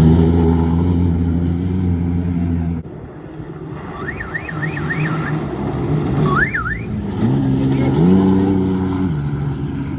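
Off-road race truck engines. One truck runs at a steady pitch until it cuts off abruptly about three seconds in. After a fast high warbling tone twice, another truck's engine climbs in pitch in steps and falls away near the end.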